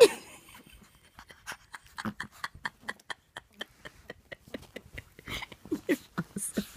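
A small white fluffy dog play-wrestling with a hand, making quick short snorts, pants and grunts, about four or five a second, that grow stronger near the end. A sudden loud sound comes right at the start.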